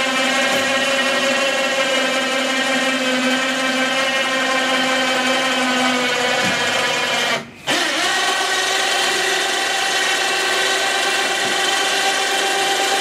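Electric hoist motor running steadily with a whirring hum while it lowers an outboard motor into a test tank. It stops briefly about halfway through, then starts again.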